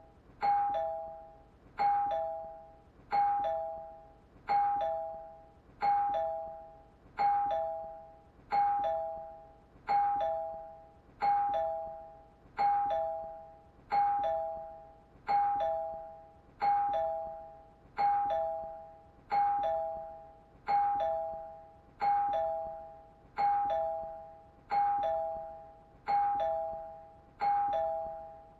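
Two-tone ding-dong doorbell chime ringing over and over, a higher note then a lower one, each fading out, about three rings every four seconds without a break.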